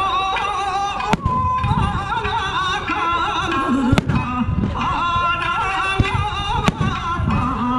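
Music with a wavering melody, broken by four sharp bangs of aerial firework shells bursting, spread through the stretch.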